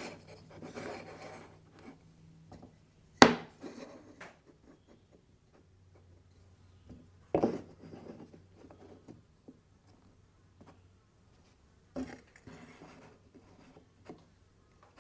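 Mitre-cut wooden pieces knocked down and shuffled against each other on a workbench: a few sharp wooden knocks, the loudest about three seconds in and others near seven and twelve seconds, with light scraping and rubbing in between.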